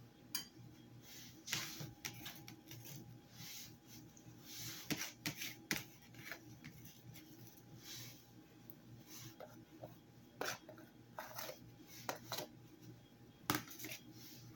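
Faint, scattered small clicks and taps with soft rubbing, from a hand and a metal spoon against a glass mixing bowl as chopped ginger is sprinkled into and worked through marinating chicken pieces. A few sharper taps stand out midway and near the end.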